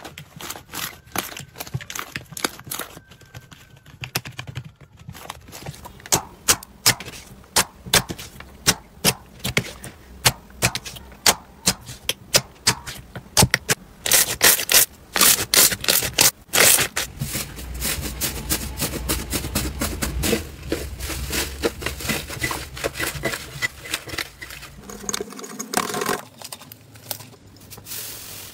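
Hands squeezing and pressing slime, which gives off a run of sharp pops and crackles. The pops come thick and loud about halfway through, then turn into a denser crackle.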